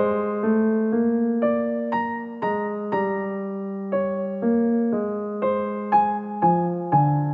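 Slow piano music, a note or chord struck about every half second over held low notes.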